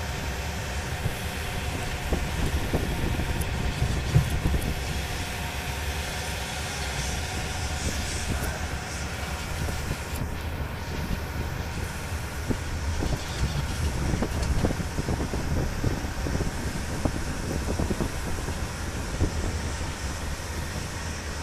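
Tractor running steadily as it drives along, with frequent knocks and rattles over the engine noise.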